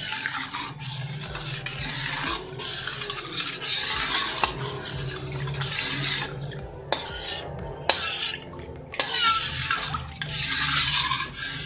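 A metal spoon stirs thin coconut milk and spice paste in a stainless steel wok: liquid sloshing and scraping, with a few sharp clicks of the spoon against the pan.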